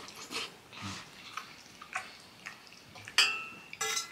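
Soft mouth noises of eating noodles, slurping and chewing. Then a metal fork clinks twice against a metal cooking pot with a short ring, a little over three seconds in and again about half a second later.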